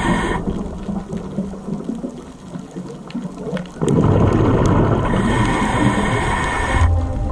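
Underwater rushing and bubbling of water picked up by a diver's camera, jumping louder about four seconds in.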